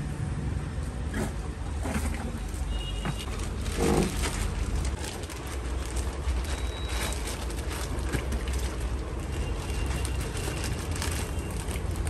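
A steady low rumble of background noise with scattered faint rustles and clicks as plastic fish bags are handled, and a brief louder swell about four seconds in.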